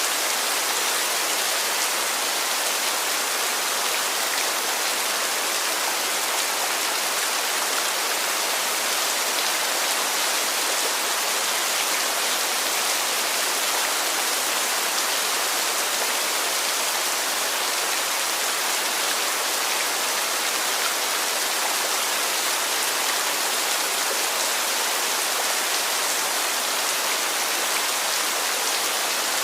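Heavy rain falling steadily, an even hiss with no lulls or gusts.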